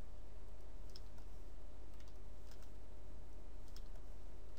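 A few faint, scattered clicks of a computer mouse and keyboard over a steady low hum.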